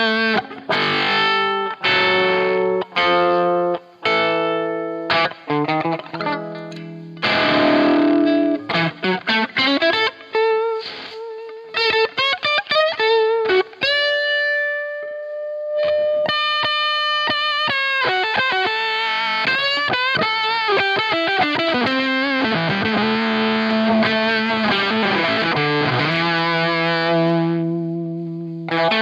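Electric guitar through a Dunlop FFM1 Silicon Fuzz Face Mini fuzz pedal into a Marshall Super Lead amp, played with fuzz distortion. It begins with short chord stabs separated by quick gaps, then moves to sustained lead notes and long held chords with vibrato.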